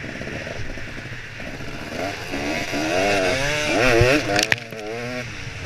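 Dirt bike engine riding a motocross track, revving up and down again and again as the throttle opens and closes. There are a couple of sharp knocks about four seconds in, then a short drop in engine note.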